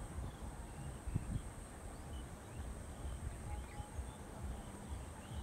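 Soft footsteps of a man walking over grass and a dirt path, a steady plodding rhythm of low thuds.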